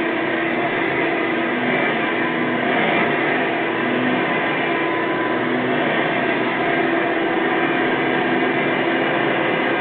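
Hoover Soft and Light Supreme upright vacuum cleaner running steadily on a rug, its motor and Cleveland Wood Products wooden brush roll spinning hard enough to pull the machine along by itself.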